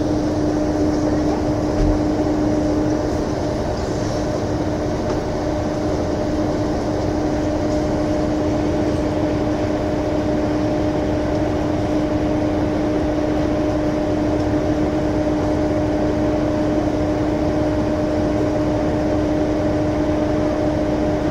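A Mercedes-Benz O405 N2 city bus's rear-mounted engine idling steadily, with a constant droning hum over the engine rumble.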